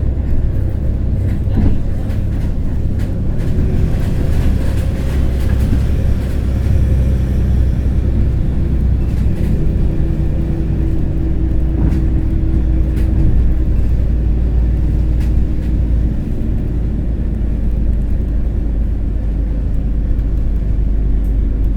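Circulation shuttle bus driving along the road: a steady low engine and road rumble, with a faint engine tone and a few light rattles.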